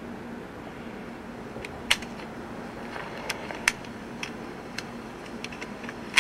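A steady low hum with irregular sharp clicks and knocks starting about a second and a half in, a few of them louder, and a quick cluster of louder knocks at the very end.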